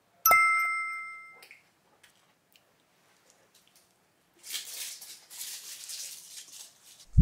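A single bright, bell-like chime rings once and fades over about a second. Later, from about four and a half seconds in, there are soft wet mouth noises as a large bite of eel sushi is pushed into the mouth and chewed.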